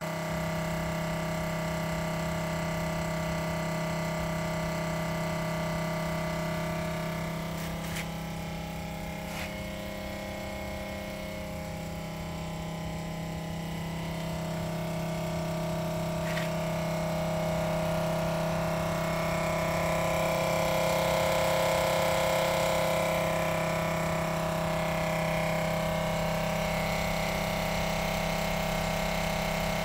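Small electric chemical-transfer pump of a soft-wash system running steadily, a continuous hum that swells somewhat in the middle as chemical is moved from the drum through the hoses. A few light clicks sound over it.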